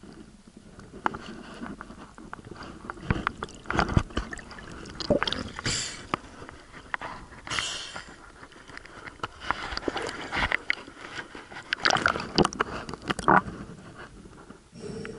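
Water and handling noise on a camera in a waterproof housing, moving underwater and lifted through the sea surface: irregular crackling clicks and knocks with gurgling, and two short splashy hisses about six and seven and a half seconds in.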